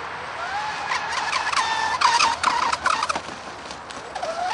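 RC racing boat's motor whining and rising in pitch as it speeds away, then cutting in and out in choppy bursts for a second or so, before rising again and holding a steady high whine near the end.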